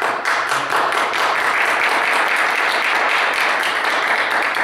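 Audience applauding loudly, a dense run of many hands clapping.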